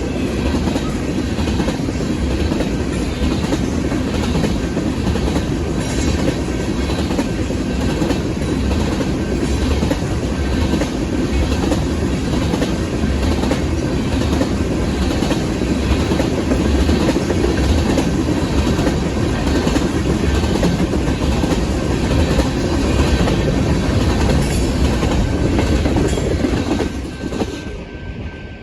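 Freight cars of a Union Pacific train rolling past a grade crossing, wheels clacking over the rail joints with a steady rumble. Near the end the last car goes by and the noise falls away, leaving the crossing bell ringing.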